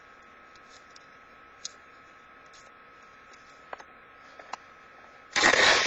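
Paper being torn by hand: a few faint rustles and clicks, then one loud rip lasting about half a second near the end, over a steady low hiss.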